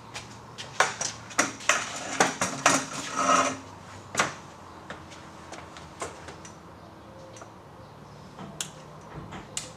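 A quick run of sharp metallic clinks and knocks over the first four seconds, then a few scattered faint ticks.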